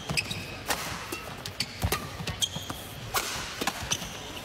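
Badminton rally: rackets striking the shuttlecock in sharp cracks, with court shoes squeaking briefly on the floor between shots.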